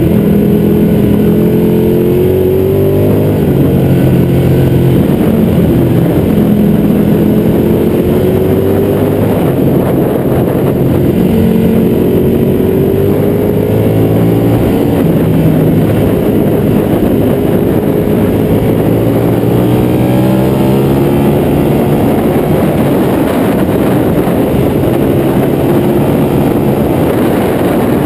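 Ducati 1199 Panigale's Superquadro 90-degree V-twin engine running hard on a track lap. Its pitch rises in repeated sweeps under acceleration and steps back down at gear changes and when slowing for corners.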